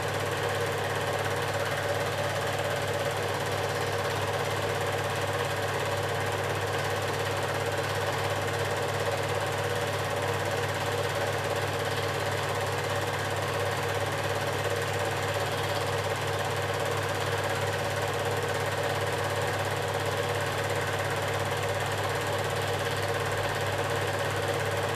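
Super 8 film projector running: a steady, unchanging mechanical whir with a constant low hum beneath it.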